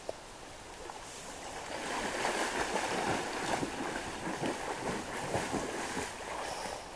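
A person swimming in a shallow river, arms and legs churning and splashing the water in an uneven run of splashes. It grows louder about two seconds in and eases off near the end.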